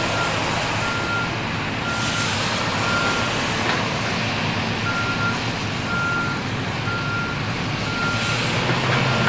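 Reversing alarm on a heavy construction vehicle beeping about once a second, pausing briefly about a third of the way through, over the steady low running of engines.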